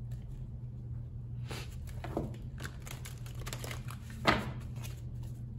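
Tarot cards being handled: soft rustling and sliding, with one sharp tap about four seconds in, over a steady low hum.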